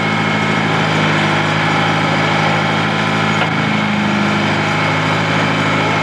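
Backhoe engine running steadily at a constant speed.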